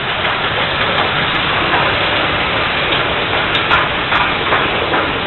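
Two LMS Black Five 4-6-0 steam locomotives passing close, with a loud, steady rushing hiss of steam. A few sharp knocks come through about three and a half to five seconds in.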